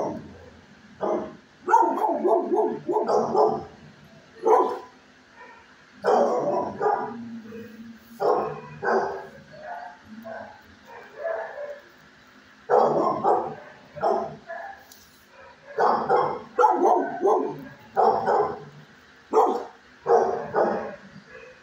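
Dogs barking in repeated bursts of one to several barks, every second or two, with a faint steady hum underneath.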